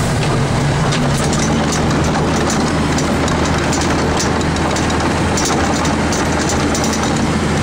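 Ford L9000 plow truck's diesel engine running steadily under load, heard from inside the cab, over a continuous rush of snow being pushed and thrown off the plow and wing.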